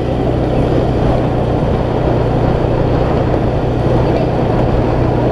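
Motorcycle engine running steadily while riding, under heavy wind noise on the microphone.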